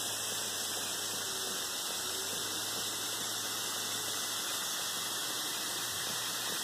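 35% hydrogen peroxide fizzing and bubbling as it reacts with the pyrite and other sulfides on a gold-quartz specimen, a steady hiss at an even level.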